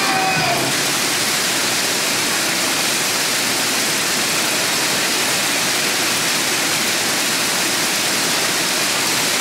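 Heavy rain and hail pouring down onto pavement, a steady, dense hiss.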